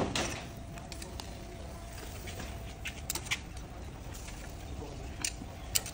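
Charcoal fire under roasting chickens crackling, with a few sharp pops spread out over a faint steady background. A single knock right at the start is the loudest sound.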